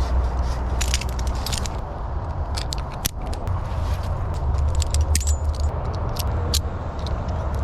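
Metal climbing hardware jingling and clinking in short, irregular bursts, over a steady low engine rumble.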